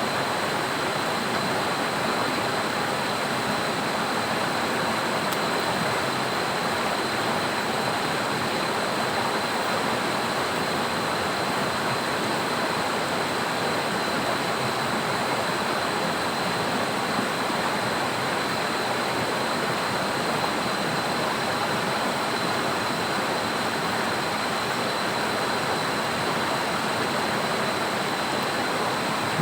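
Steady, unbroken rush of water from heavy rain and a swollen, overflowing river, with a thin steady high tone above it.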